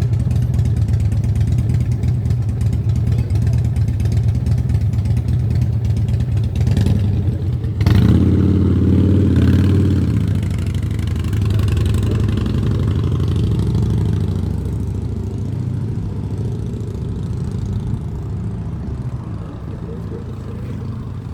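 Motorcycle engine idling with a deep, even exhaust note. About eight seconds in, after two sharp clicks, it briefly gets louder, then gradually fades.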